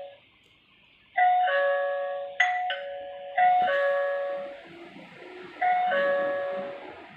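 Electronic two-tone ding-dong doorbell chime, a higher note stepping down to a lower one, rung about four times in a row, with a sharp click about two and a half seconds in.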